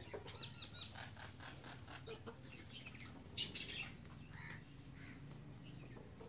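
Backyard chickens making faint chirps and calls, with a brief louder rustle about three and a half seconds in.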